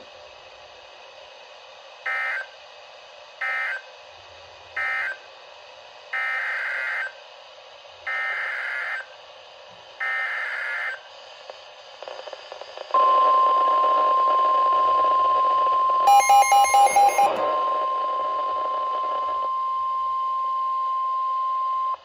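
NOAA Weather Radio Emergency Alert System signalling from a Midland weather alert radio. Three short SAME digital bursts close the previous tornado warning, then three longer SAME header bursts announce a new one. The steady 1050 Hz warning alarm tone follows from about 13 s on, and the radio's own alarm beeps rapidly for about a second partway through the tone.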